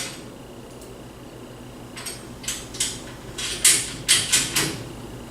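Steel treestand rail parts and bolt hardware clinking and clattering as they are handled and fitted, in a quick run of about eight sharp metallic clanks starting about two seconds in.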